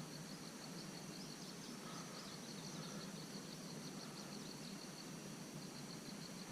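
Faint outdoor ambience: a steady high-pitched drone with rows of small repeated chirps over a soft hiss.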